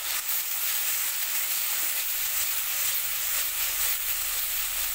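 Spice paste with tomato and turmeric sizzling in hot oil in a kadai as it is fried down, a steady hiss.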